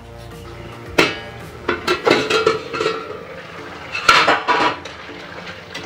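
A steel plate used as a lid clanking and clinking against the kadhai. There is a sharp clank about a second in and a few clinks around two seconds. The loudest, ringing clank comes near four seconds, as the lid is lifted off the simmering curry.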